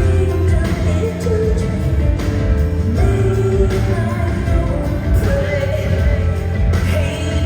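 Live concert music: a woman singing over a band, with a strong, steady bass line underneath.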